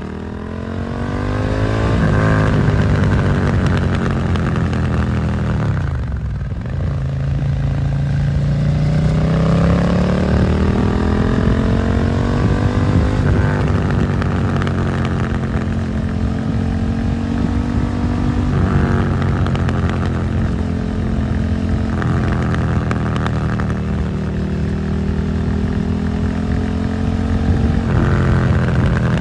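2022 Suzuki SV650's V-twin engine through an aftermarket Dominator GP exhaust, riding through town: revs rise and fall as it accelerates and shifts, with a drop in revs about six seconds in, then it pulls up through the gears again with several shifts.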